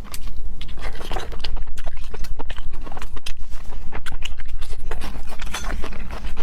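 A person chewing loudly into a close microphone, with rapid, irregular wet lip smacks and mouth clicks, eating fatty pork large intestine stuffed with pig brain.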